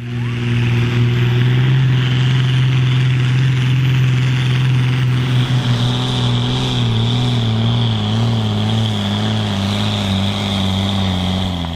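Ford TW-series pulling tractor's diesel engine running loud at high revs. A little over halfway through, its pitch sags and wavers, as an engine does when pulled down under load.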